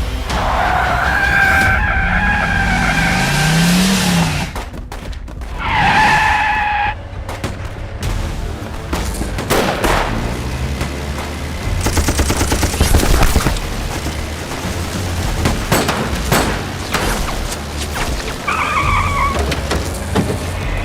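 Film battle sound effects: a steady low engine rumble with squealing skids near the start, around six seconds in and near the end. A run of rapid gunfire falls in the middle.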